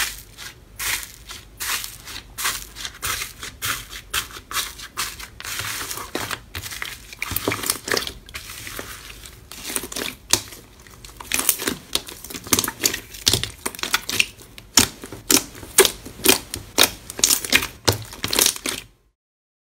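Hands poking, pressing and kneading crunchy slime: a run of crisp crackles and pops, a few each second, getting denser and louder in the second half and stopping suddenly near the end.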